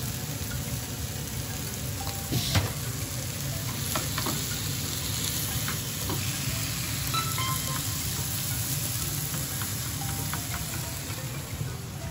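Bean sprouts and chives sizzling in a frying pan over a gas flame while being stirred with chopsticks. There are light clicks of the chopsticks against the pan, the sharpest about two and a half seconds in.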